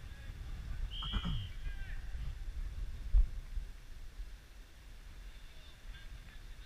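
Wind rumbling on the microphone, with a distant shout and a short high whistle blast about a second in, and a low bump on the microphone a little after three seconds.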